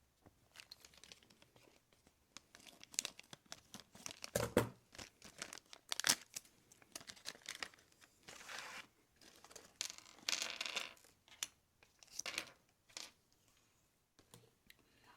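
A LEGO minifigure blind-bag wrapper being torn open and crinkled by hand, in irregular bursts of tearing and rustling.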